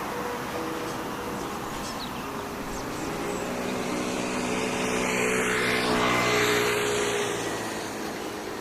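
A motor vehicle driving past: its engine note grows louder for about six seconds, peaks, then fades away as it goes by.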